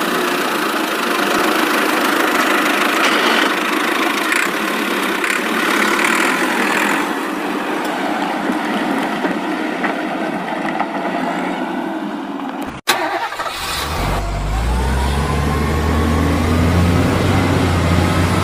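Engine sounds laid over toy vehicle footage. First comes a rough, hissy engine noise with no deep bass. After an abrupt cut about 13 seconds in, a deep engine runs at idle with a low rumble.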